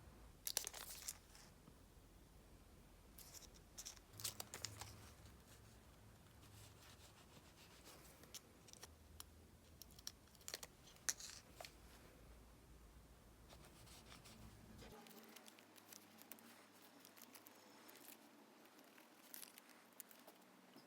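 Faint paper-and-stationery sounds on a diary page: scattered short scratches, crinkles and crackles, with a few louder clusters, over a quiet room.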